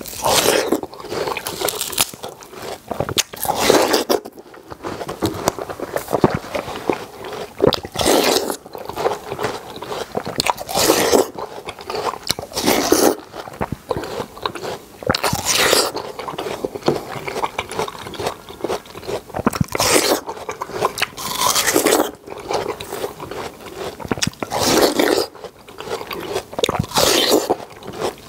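Close-miked eating of yellow-rinded half-moon (bandal) watermelon: a loud bite into the flesh every couple of seconds, with chewing between the bites.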